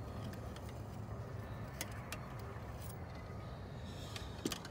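A few light metallic clicks as the engine oil dipstick is handled and pulled out, with a sharper clack near the end, over a steady low rumble.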